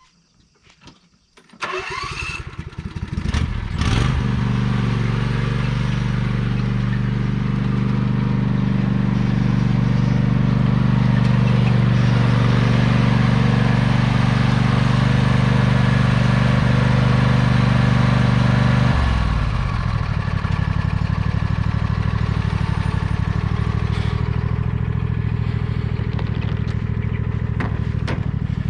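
Riding lawnmower engine starting up about two seconds in, then running steadily; about two-thirds through its note drops a little and it carries on running at the lower speed.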